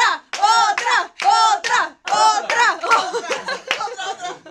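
Voices chanting a short rising-and-falling vocal call over and over in a steady rhythm, about once a second. For the last second and a half or so it breaks up into mixed vocal noises with hand claps.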